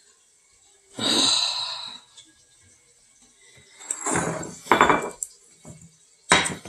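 Dishes and glassware clattering and clinking as they are handled, in two short bouts: about a second in and again about four seconds in.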